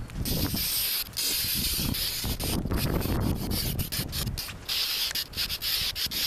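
Aerosol can of black spray paint hissing in repeated bursts with short breaks as a coat goes onto a plywood box, with a low rumble underneath.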